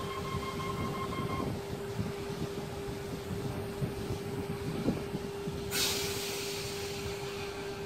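Sydney Trains Tangara electric train standing at a platform, giving a steady electrical hum. A higher steady tone stops about a second and a half in, and a sudden hiss of released compressed air comes just under six seconds in and fades away.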